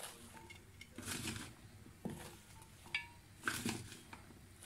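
Raw turnip chunks being spread by hand in a clay cooking pot: about five brief, faint rustles and clicks as the pieces shift against each other and the pot.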